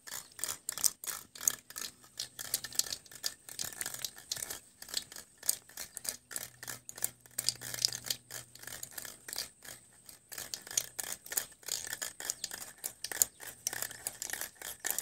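Close, irregular crackling and scraping, with many small clicks a second throughout.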